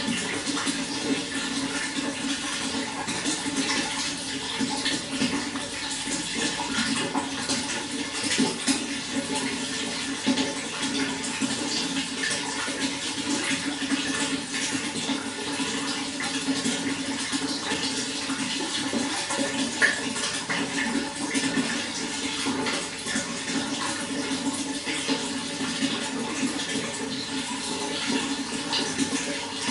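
Running water flowing steadily, a continuous splashing and gurgling rush with no pauses.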